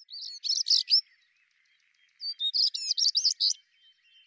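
A songbird singing: two short phrases of quick, high, sliding notes, the second starting about two seconds in, with a pause between them.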